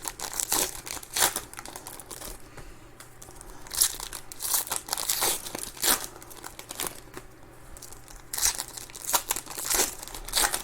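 Trading card pack wrappers crinkling and tearing as 2021 Panini Donruss Optic baseball packs and cards are handled, in short irregular scratchy bursts.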